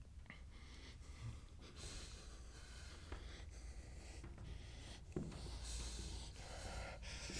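A person breathing audibly, a few slow, faint breaths over a low steady hum.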